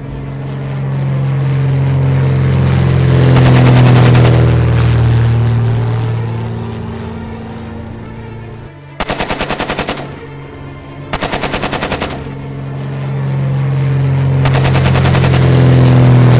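Dubbed-in sound effect of a propeller warplane's engine droning and swelling as it flies past, twice, with two one-second bursts of rapid machine-gun fire between the passes.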